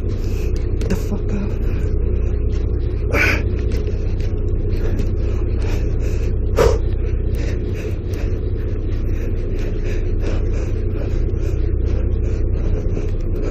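Boat's engine running steadily, a low drone that holds its pitch. Faint scattered ticks sit over it, with two sharper knocks about three and six and a half seconds in.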